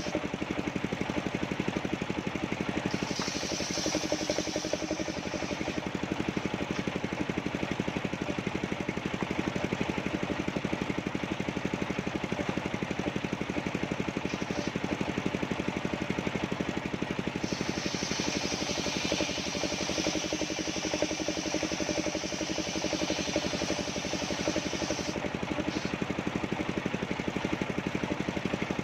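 Engine-driven portable sawmill running steadily, its engine giving an even pulsing drone. A higher hiss joins from about 3 to 5 seconds in and again from about 17 to 25 seconds in as the saw cuts through the soft coconut wood.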